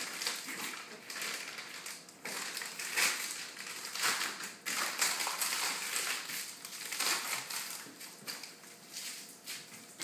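Packaging crinkling and rustling in uneven bursts as it is handled and crushed.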